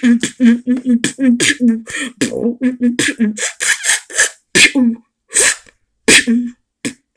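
Beatboxing: a fast run of sharp percussive mouth sounds with a hummed low note between them, thinning to a few spaced hits in the last two seconds.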